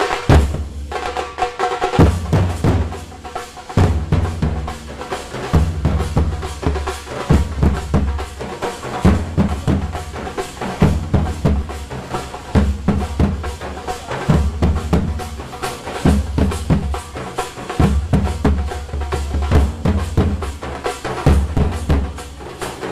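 Drumming on a large metal-shelled drum in a fast, steady rhythm: deep low strokes grouped in phrases that repeat about every one and a half to two seconds, with quick sharp strokes filling in between.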